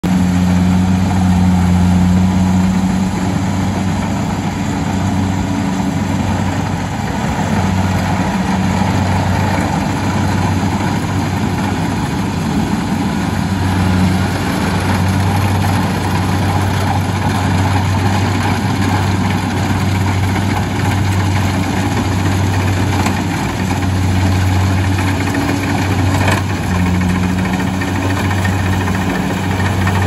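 Kubota crawler rice combine harvester running steadily while it cuts and threshes rice: a continuous diesel engine drone under load with the mechanical clatter of the working header and thresher.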